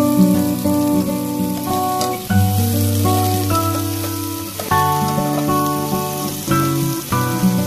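Chopped onions sizzling as they fry in oil in a pot, with a steady high hiss, under background instrumental music of held notes.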